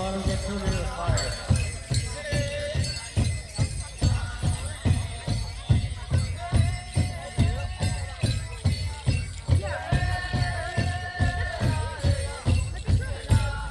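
Powwow drum group playing an intertribal song: a steady, even drumbeat on a large hand drum with a group of singers holding long sung notes over it in stretches.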